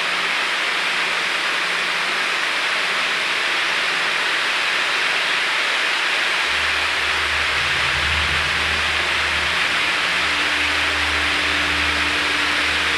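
Ground fireworks fountains hissing steadily as they spray sparks. About halfway through, a low steady hum comes in underneath.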